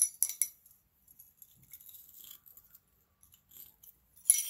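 Small wrought-iron plates and a hinge strap clinking against each other and the steel anvil face as they are shifted into place by hand. There are a few sharp, ringing clinks at the start and again near the end, with faint scraping of metal sliding on metal in between.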